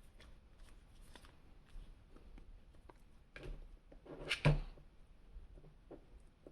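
Rustling and small clicks from cardboard and plastic action-figure packaging being handled, with a louder crinkle about four and a half seconds in.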